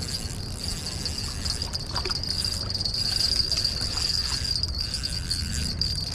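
Insects trilling steadily at one high pitch, over a low rumble.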